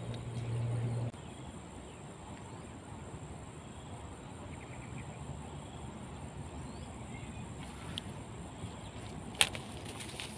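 Outdoor ambience: faint bird chirps over a steady high-pitched insect buzz. A low hum cuts off abruptly about a second in, and a single sharp click comes near the end.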